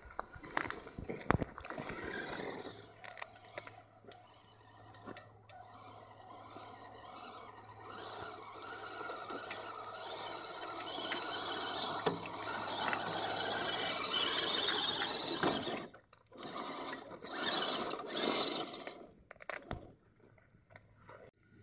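Electric 1/10-scale RC trucks driving through mud and water, their motors and gears whining and grinding, with clicks and knocks from the tyres and chassis. The sound rises and falls with the throttle and drops away briefly twice in the last few seconds.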